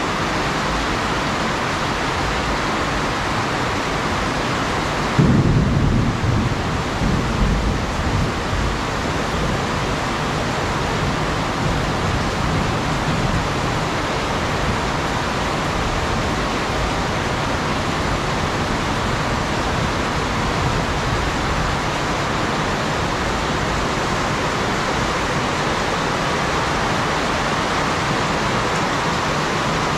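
Heavy rain pouring steadily, with a sudden clap of thunder about five seconds in that rolls on as a deep rumble for several seconds.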